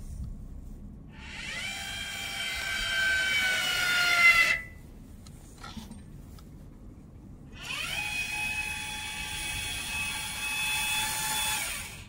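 Electric lift actuator of a Vigorun VTC550-90 remote-control crawler mower's snow-plough blade whining as it moves the blade, in two runs of about three and a half and four seconds. The first run drops slightly in pitch; the second rises briefly as it starts and then holds steady.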